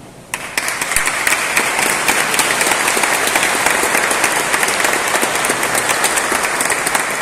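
Audience applause that breaks out suddenly a moment in and carries on as dense, steady clapping.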